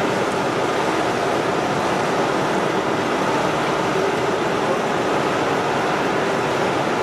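Plastic rope (sutli) extrusion line running: a steady, even machine noise with a faint steady hum through it.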